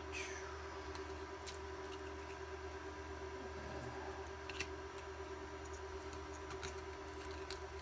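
A few faint ticks and clicks of tiny screws and a precision screwdriver being worked into the small plastic palmtop case, over a steady electrical hum.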